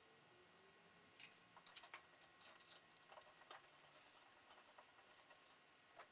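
Near silence with a few faint, scattered clicks and light ticks, the clearest about a second in and again around two and three and a half seconds in.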